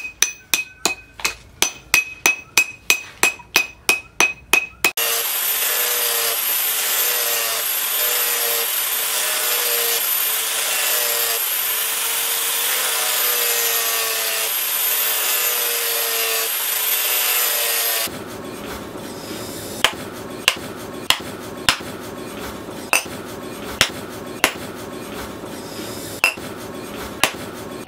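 A rapid run of hammer blows, about three a second, with a metallic ring, driving a wooden knife handle onto its steel tang. About five seconds in these give way to a steady whine from an angle grinder with a sanding disc shaping the wooden handle, with a slightly wavering tone. This stops suddenly near the middle, and single hammer blows on the handle follow, about one a second, over a quieter hiss.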